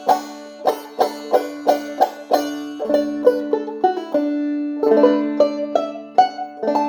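Five-string banjo played clawhammer style: a steady run of sharp plucked notes over ringing drone strings, its head tightened to the player's preferred tension. A little past the middle a few notes are held and left to ring before the picking picks up again.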